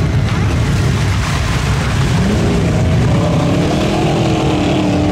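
Lifted Chevrolet pickup's engine revving as the truck churns through a mud hole, its spinning tires throwing mud and water. The engine pitch rises and wavers from about two seconds in.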